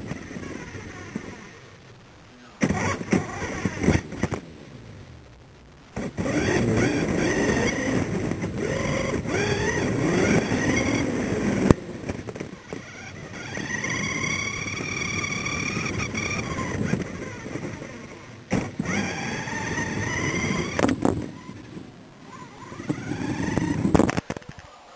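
Electric motor of a radio-controlled toy car whining up and down in pitch as it speeds up and slows in several short runs, over the rumble of its wheels. There is a sharp knock about twelve seconds in.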